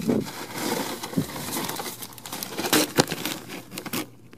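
Paper lunch sack and a plastic bag of chips crinkling and rustling as they are handled, with a few sharper crackles.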